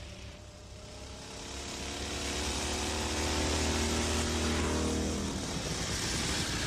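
Motorcycles and an old car driving past, their engines swelling to a peak in the middle and the engine note dropping slightly as they go by.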